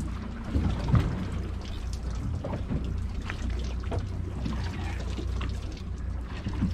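Water lapping and trickling against a boat's hull, over the steady low rumble of the boat's engine idling in neutral, with scattered small knocks.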